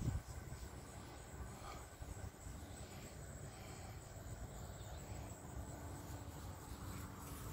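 Faint outdoor ambience: a steady, high-pitched insect drone like crickets, over a low rumbling noise, with a brief soft knock right at the start.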